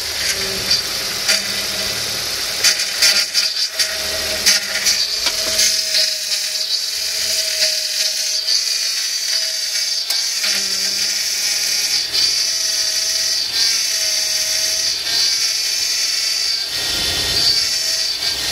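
Nissan Primera P12's power steering pump grinding and whining while the wheel is turned on an idling engine, the whine coming and going several times. It is the cavitation grind of a pump drawing air through a leaking suction-side hose, with air bubbles in the fluid.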